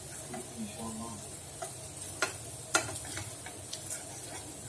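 Potato patties sizzling as they shallow-fry in oil in a pan, with sharp clicks of a spatula against the pan as they are turned; the two loudest clicks come a little past the middle.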